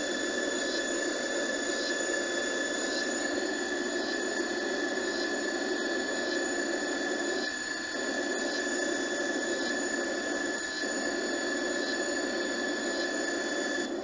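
Steady electronic hum with a high, thin whine held over it, a cartoon sci-fi sound effect, with faint high chirps repeating at a regular pace. It briefly dips twice. Heard from a TV's speakers through a phone's microphone.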